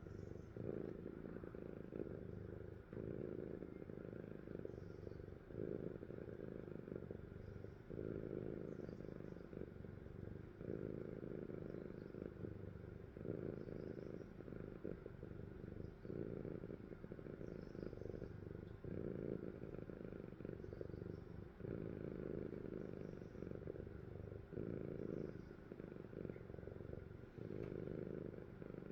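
A sleeping cat snoring, a low purring rumble that swells and eases with each breath, about every one and a half to two seconds.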